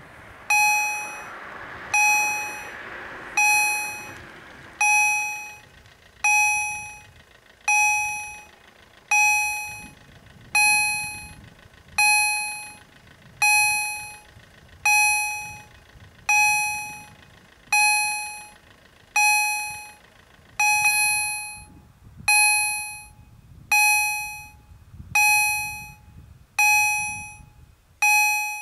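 Level-crossing warning bell from an EHL-S10 electronic sound generator set to bell modulation, striking once about every second and a half, each strike ringing and dying away. It is sounding together with the flashing red lights, warning that a train is approaching the crossing.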